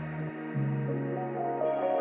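Background music: slow ambient music of sustained pads, with a bass note changing about a third of a second in.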